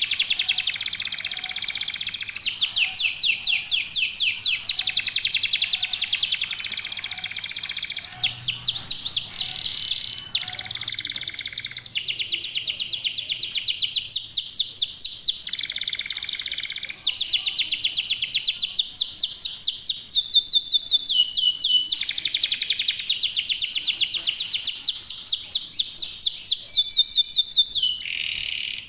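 Domestic canaries (local Indonesian 'kenari lokal') singing in fast rolling trills and chirps, several birds at once, the phrases changing every few seconds with a few short held whistled notes.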